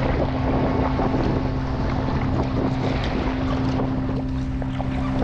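Wind buffeting the microphone and water splashing around a sea kayak being paddled, with a steady low hum underneath.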